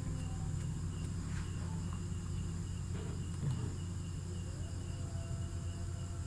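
Background of an open microphone with no speech: a steady low electrical hum, a faint high pulsing tone and a few soft clicks.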